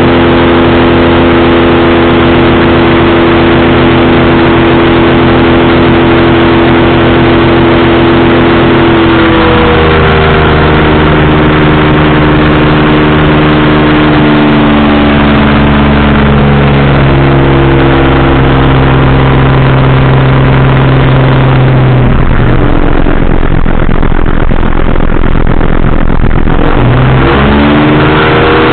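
Powered parachute's pusher engine and propeller running loud at steady power, throttled back in two steps about a third and halfway in, then eased right down for several seconds before being opened up again with a rising pitch near the end.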